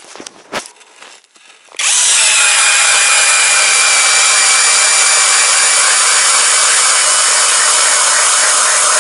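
Cordless drill driving a 130 mm ice auger through ice. After a few faint handling clicks, the drill starts about two seconds in and runs steadily at full speed, with a steady whine over the noise of the auger cutting ice.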